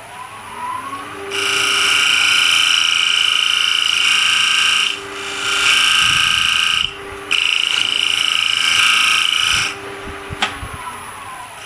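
Wood lathe spinning up, then a turning tool cutting the spinning walnut coaster blank in three long passes. The lathe winds down near the end.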